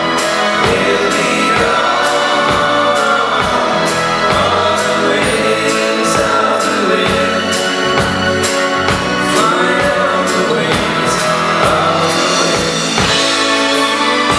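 Live pop-rock band playing, with voices singing together over a steady drum beat.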